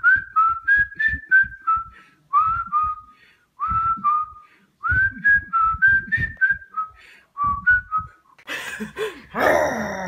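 A person whistling short phrases of quick, clear notes, with pauses between the phrases. Near the end a baby laughs loudly.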